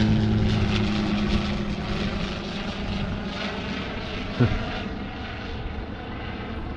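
Small propeller plane's engine droning steadily as it comes in to land, its hum fading away over the first couple of seconds and leaving a softer steady rush. A short sliding sound stands out about four and a half seconds in.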